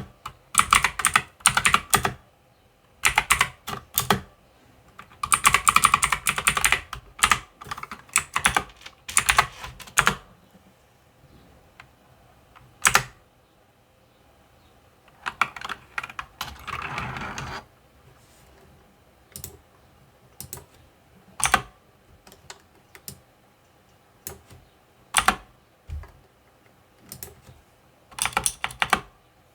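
Mechanical computer keyboard keys being pressed: fast runs of typing clicks in the first ten seconds and again a little past the middle, then single key presses spaced a second or two apart, with another quick run near the end.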